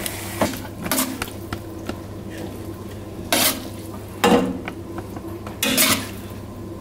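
A utensil scraping and clinking against a red enamelled cooking pot as pasta is scooped out, with several short, sharp knocks spread through the scraping.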